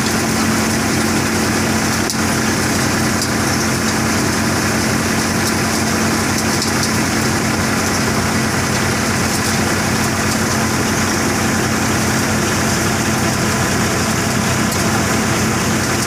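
Threshing machine running at steady speed while threshing cumin: a continuous mechanical drone with a steady hum that does not change.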